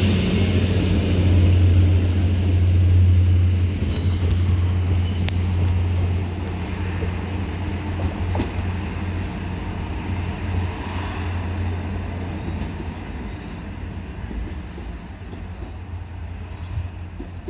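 Class 175 diesel multiple unit drawing away along the platform, its engines giving a low drone that fades steadily as it recedes, with a thin high whine that dies away and a few short clicks from the wheels on the rails.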